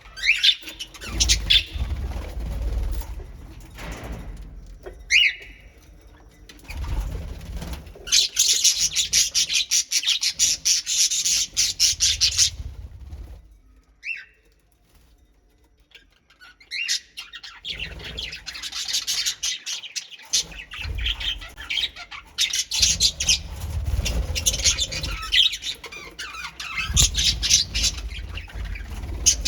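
A colony of pet birds chirping and squawking in rapid, dense chatter, with flapping wings. The chatter stops for a couple of seconds about halfway, then resumes.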